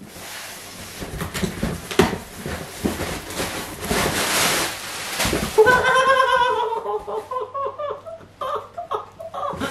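Packing tape being torn off a cardboard box and the flaps pulled open: a long, noisy tear with cardboard scraping and clicking, lasting about five seconds. Then a man laughs.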